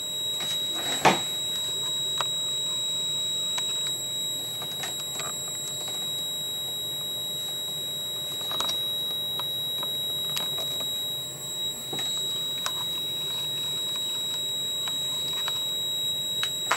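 Multimeter continuity beeper sounding one steady, unbroken high tone while the probes sit across the power supply's shorted yellow 12 V line. Now and then the probe tips click against the connector pins.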